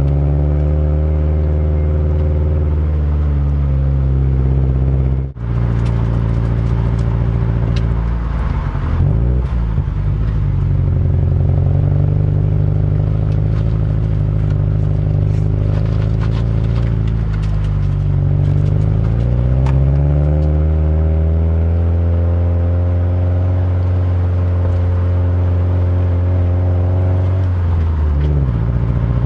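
Subaru WRX STI's turbocharged EJ20 flat-four engine and exhaust pulling the car uphill, heard from outside the car. The engine note is steady, with its pitch dipping and climbing again a few times. Light crackling clicks run through the middle.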